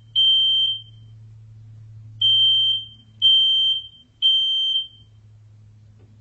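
Smoke alarm beeping in its three-beep pattern, the standard temporal-three fire alarm signal. A single high beep ends one group, then after a pause of about a second and a half come three more beeps, a second apart.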